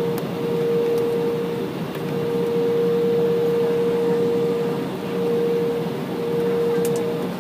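Steady cabin noise of an Embraer E175 regional jet taxiing on its two CF34 turbofans: a constant whine over a broad rumble, heard from inside the cabin.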